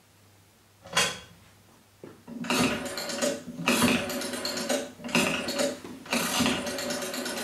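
A sharp click, then a small mechanism ratcheting and whirring in repeated bursts of about a second each.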